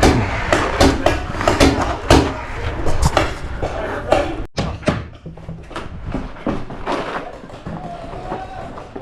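Paintball fire: rapid, irregular sharp pops, several a second, thinning out after about halfway.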